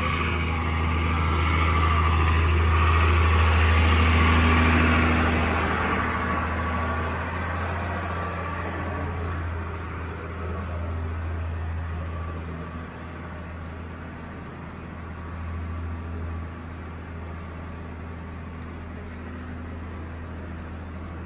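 Parked fire truck's engine running steadily with a low hum, loudest early, then growing gradually fainter over the rest of the stretch.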